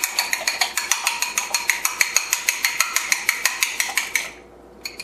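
Eggs being beaten by hand in a small bowl: quick, even clicking of the utensil against the bowl, about ten strokes a second. The clicking stops about four seconds in.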